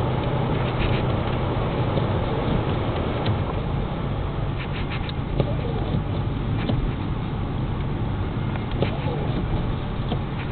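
Car engine hum and tyre noise heard from inside the cabin while driving on a snow-covered road, with scattered small clicks throughout.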